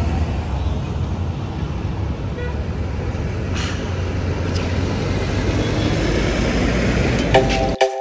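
Steady ride noise of a motorcycle on the move: engine and wind rushing past, heavy in the low rumble. Near the end music comes in and the ride noise cuts off abruptly.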